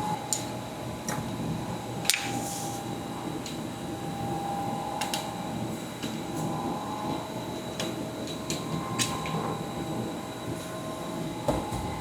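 Scattered sharp metallic clicks and taps of hand tools on a stuck transfer case plug that spins in its stripped threads, about eight over the stretch, over a steady background hum.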